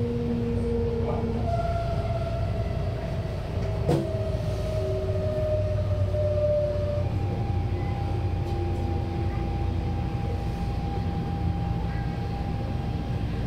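MTR Tung Chung line A-train heard from inside the car: a steady rumble of wheels and running gear under the whine of the traction motors. The whine steps up in pitch about a second and a half in, slowly falls for several seconds as the train slows, then settles on one steady higher tone. There is one sharp click near the middle.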